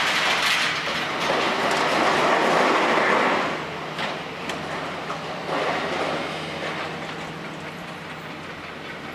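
Hitachi ZX650LCH excavator's engine running with a steady hum while twisted steel scrap scrapes and clatters in its demolition crusher jaws. The scraping is loudest for the first three and a half seconds and comes back more weakly about six seconds in.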